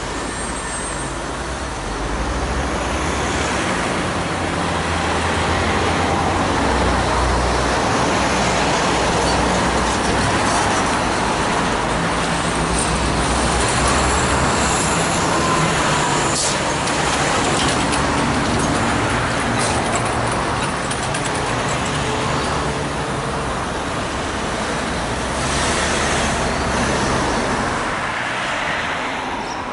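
Road traffic driving past: cars and trucks going by one after another, with engine rumble and tyre noise swelling and fading as each passes.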